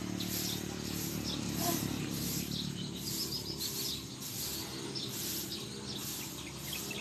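Birds chirping and tweeting in short repeated calls, over a steady low hum.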